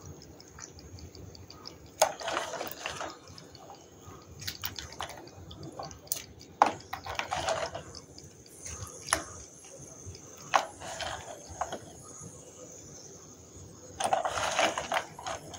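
Water-soaked lumps of Nakumatt clay handled by fingers in a bowl of water: sharp clicks as the chunks knock together, with short bursts of splashing about two seconds in, around seven seconds in, and again near the end.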